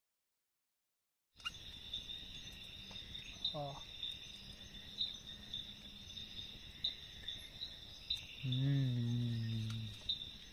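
A steady high-pitched chorus of night crickets, starting after a moment of silence. A man's brief low vocal sound comes about three and a half seconds in, and a longer one of about a second and a half near the end.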